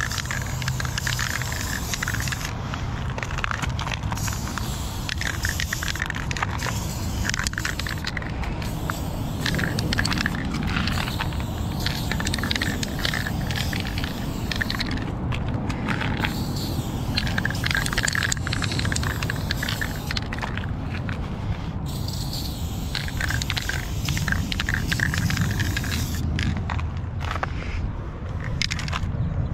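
Aerosol spray paint can hissing in stretches of a few seconds with short breaks between strokes, over a constant low rumble and some scraping.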